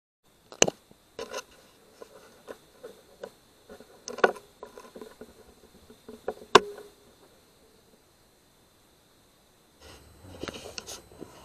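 Wild boar foraging on the ground: irregular soft crunching and clicking with a few sharp louder cracks, then a short quiet. Near the end, rustling and rumbling handling noise as the camera moves.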